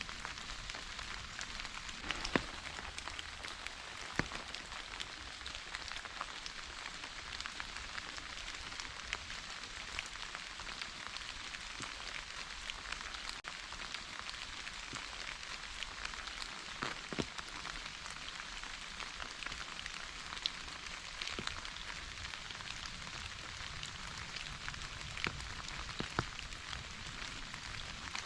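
Steady rain falling as an even hiss, with scattered sharper drop ticks, a few of them louder.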